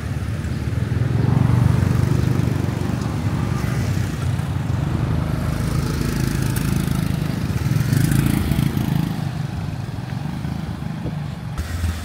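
Street traffic: vehicle engines running and passing close by, swelling louder about a second and a half in and again about eight seconds in.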